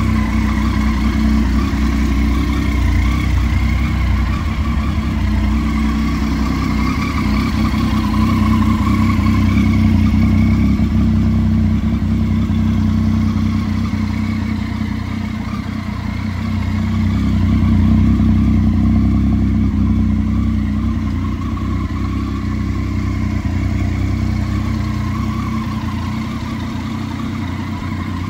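Triumph Tiger 800's three-cylinder engine idling steadily.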